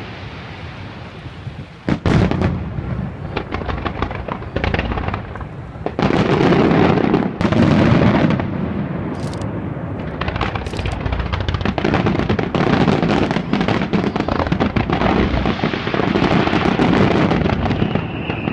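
A starmine of aerial firework shells: a rapid-fire barrage of shell bursts and crackling. It goes lighter at first, with a loud burst about two seconds in, then a dense, almost unbroken run of bangs that echo.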